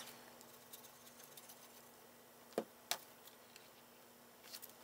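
Quiet room tone with a faint steady hum. Two short taps about a third of a second apart around the middle, and a few faint ticks near the end, come from cardstock and a glue bottle being handled on a cutting mat.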